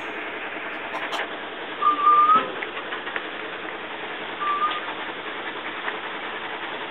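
Two short, high whistle-like notes, the first rising slightly and the second shorter, about two and a half seconds apart, over a steady background hiss.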